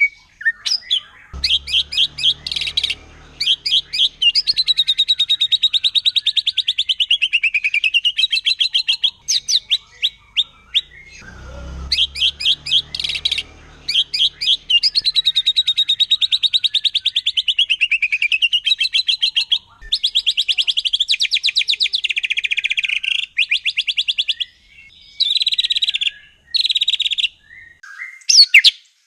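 White-rumped shama (murai batu) singing a fast, harsh song of rattling trills. Long runs sweep down in pitch and back up, broken by short pauses and quick, sharp phrases.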